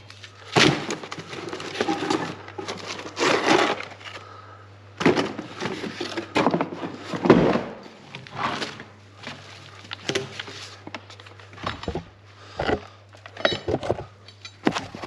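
Irregular knocks, clatters and rustles of things being handled, in short separate bursts, over a steady low hum.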